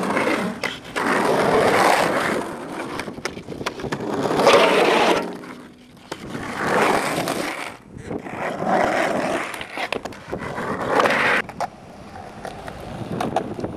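Skateboard wheels rolling over rough concrete in several separate runs, each a second or two long, with sharp clacks of the board among them. The rolling dies away near the end.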